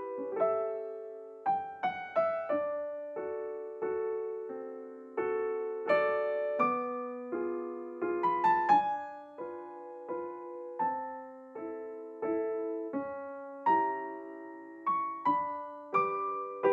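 Background piano music: a slow, gentle melody of struck notes and chords, each fading away before the next.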